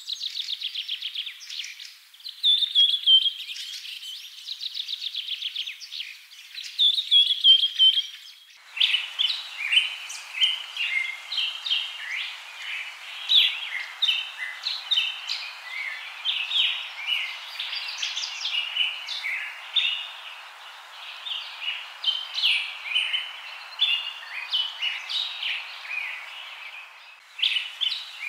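Birds chirping and trilling: at first one bird's rapid repeated trills, then, switching abruptly about nine seconds in, a denser chorus of many short chirps over a steady hiss.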